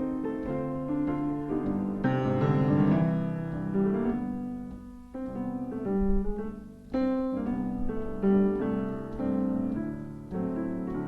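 Solo piano playing a slow song: a melody over sustained chords, with no singing.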